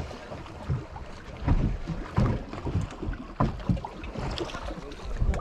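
Wind gusting over the microphone in irregular low rumbles, with water slapping and lapping against the hull of a small anchored boat.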